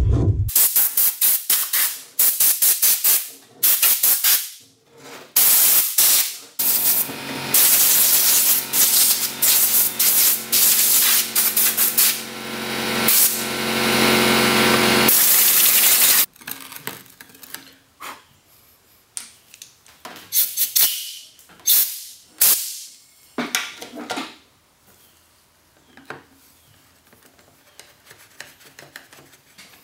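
Compressed air hissing from a blow gun as dust is blasted off a chainsaw, first in short blasts, then in one long steady blast of about eight seconds. After that come quieter clicks and knocks of a screwdriver and parts being handled as the cover screws come out.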